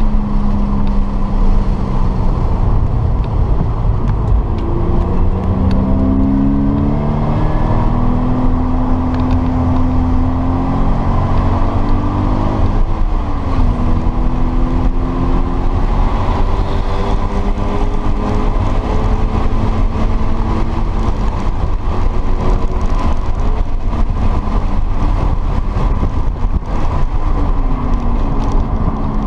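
Subaru BRZ's 2.0-litre flat-four engine heard from inside the cabin at track speed, its pitch climbing as it pulls through the revs, then dropping sharply about 13 seconds in and again near the end, over a steady low road rumble.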